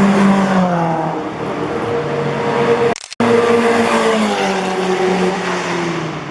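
Car engines running at a race track, the engine note falling in pitch twice. The sound cuts out abruptly for a moment about three seconds in.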